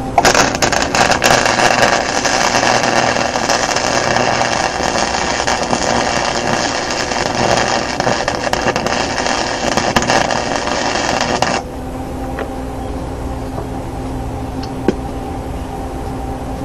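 Lincoln Handy MIG 110-volt wire welder laying a bead, its arc crackling and sputtering steadily for about eleven seconds, then stopping abruptly; the wire speed has just been turned down from 8 to 5 after feeding too fast. A steady low hum carries on underneath and after the arc stops.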